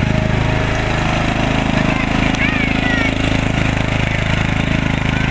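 Lawn mower engine running steadily, with a few short high chirps two to three seconds in.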